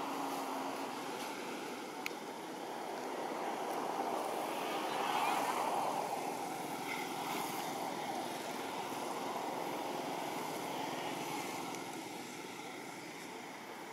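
Steady rushing outdoor background noise that swells about five seconds in, with one faint click about two seconds in.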